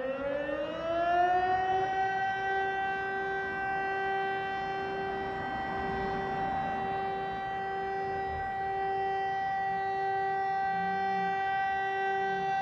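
Civil-defence siren winding up over about two seconds and then holding one steady tone: the continuous all-clear (Entwarnung) signal.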